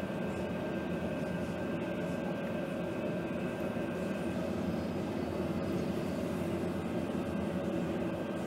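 Harbour tug's engines running under way with a steady drone, heard from inside the wheelhouse, as the tug holds position alongside a ship's bow to make fast.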